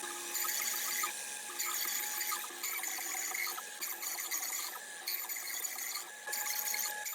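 Woodworking power tool running and working plywood. It gives a high-pitched whine that comes and goes in irregular bursts over a steady tone.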